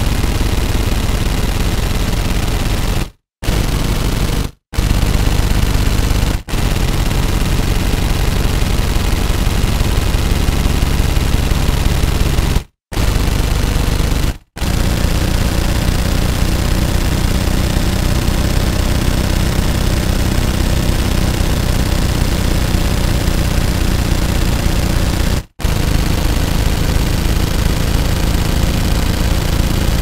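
Machine gun firing fully automatic in long continuous bursts, broken by several brief pauses; the longest burst lasts about ten seconds.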